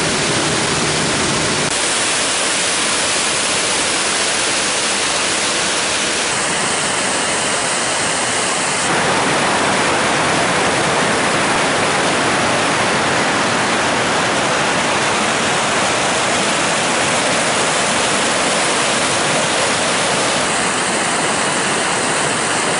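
Mountain stream cascades and a waterfall rushing loudly and steadily, with the tone of the water noise shifting abruptly a few times.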